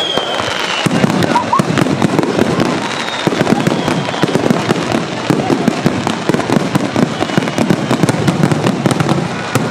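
Aerial fireworks bursting in a dense, irregular stream of rapid crackling pops, with a faint falling whistle in the first second.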